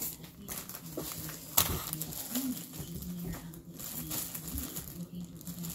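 Rustling and crinkling of items and packaging being handled, with a sharp knock about a second and a half in and a faint steady hum underneath.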